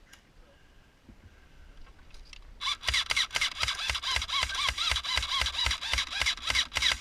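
Airsoft electric gun firing a fast string of single shots, each a sharp click with a short whine from the gearbox motor, about five a second. It starts about two and a half seconds in.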